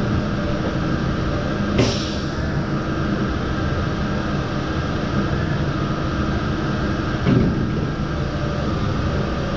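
Steady machine hum of a Lely A5 milking robot stall, broken by two sudden sharp sounds: one about two seconds in, and one about seven seconds in with a short low falling tone.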